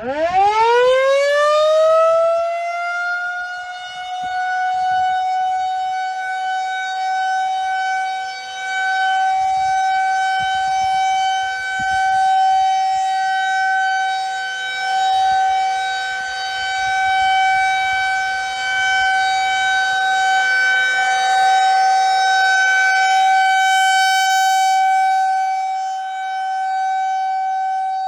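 Federal Signal 2001 rotating tornado siren starting its monthly test. It winds up from nothing to full pitch in about two seconds, then holds one steady tone. Its loudness swells and fades as the rotating head sweeps past.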